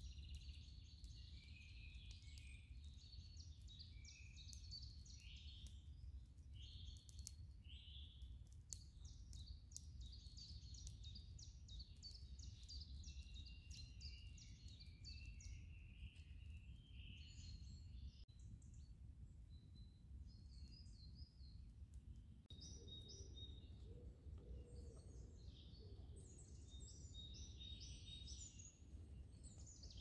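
Faint woodland birdsong: many small birds chirping and trilling high-pitched over a steady low background rumble.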